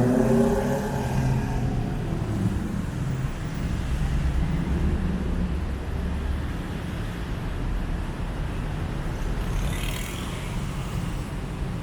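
Street traffic: a vehicle engine rising in pitch as it accelerates at the start, then a steady low traffic rumble, with a brief hiss about ten seconds in.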